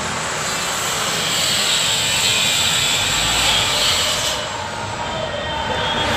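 A loud, steady rushing noise that grows after about a second and dips briefly near the end.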